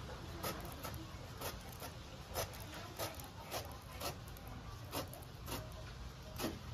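A knife peeling the rind off a small young green jackfruit, one short cutting stroke about every half second.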